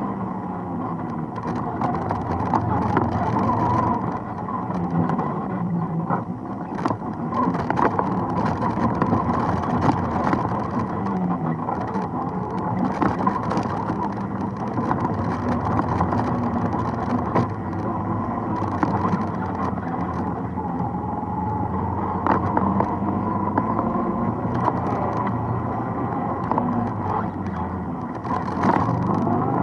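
ATV engine running under way, its pitch rising and falling with the throttle, with scattered knocks and rattles from the bumpy trail.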